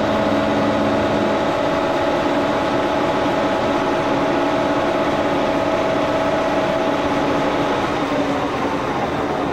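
1942 Brown & Sharpe No. 2 plain milling machine running steadily with a whine, taking a light roughing cut in salvaged aluminum. The whine fades somewhat near the end.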